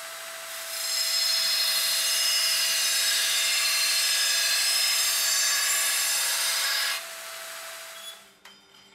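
Belt grinder running with a steady motor hum. About a second in, a forged steel chopper blade is pressed to the abrasive belt for about six seconds, giving a loud, even, rough grinding hiss as steel is ground off. The blade then lifts away, leaving only the motor hum, which drops away near the end.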